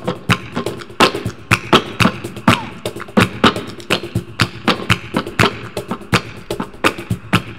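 Flamenco music driven by a fast, uneven run of sharp percussive strikes, several a second.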